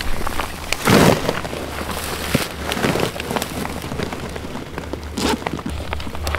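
Rustling and knocking of a backpack and gear being handled close to the microphone, in a few short bursts, the loudest about a second in, over a steady low rumble.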